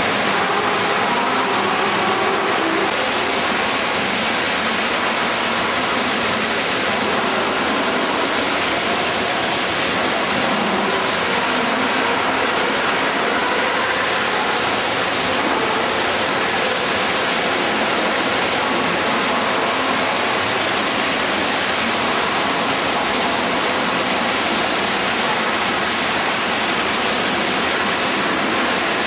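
A gold dredge's machinery and process water running steadily: a loud, dense, even rush of noise with a few faint steady hums in it.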